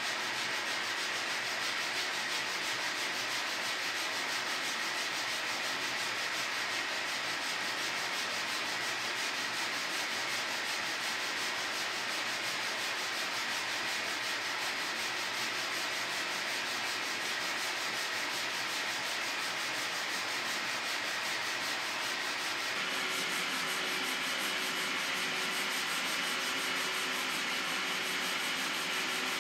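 Strip of abrasive cloth pulled back and forth around a hand-carved wooden guitar neck, shoe-shine fashion: a steady, continuous rasping rub of fast strokes. The sound changes a little in character about two-thirds of the way through.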